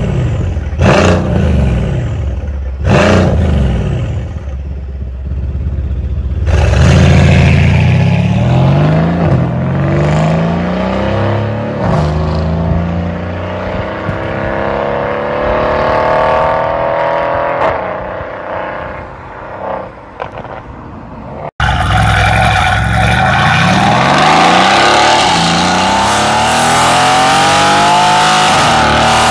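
Mercedes-AMG C63's twin-turbo V8 through a valved Fi catback with catless downpipes: two short, sharp revs, then hard acceleration through several upshifts, the pitch rising and dropping at each shift, fading as the car pulls away. After a sudden cut, another loud run of acceleration with upshifts.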